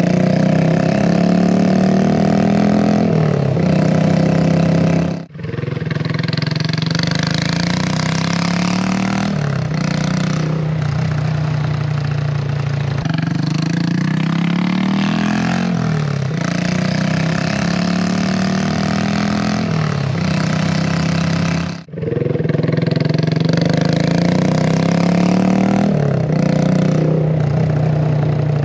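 Honda Grom's single-cylinder engine running through a nearly straight-piped exhaust (silencer removed, outlet only narrowed) while riding, the note rising and falling repeatedly with the throttle. A loud, poppy exhaust sound. It breaks off briefly twice, about five and twenty-two seconds in.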